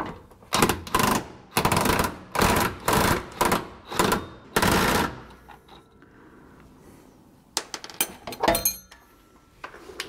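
DeWalt 20V XR brushless cordless impact wrench hammering in about seven short bursts, spinning the nut off a leaf-spring mounting bolt, which comes off easily. A few light clicks follow near the end.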